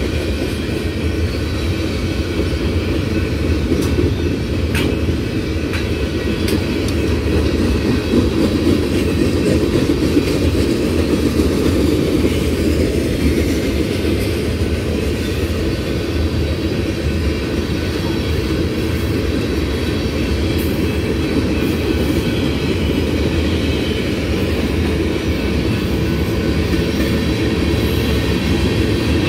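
Freight train cars rolling past: a steady rumble of steel wheels on the rails, with a few faint clicks early in the passage.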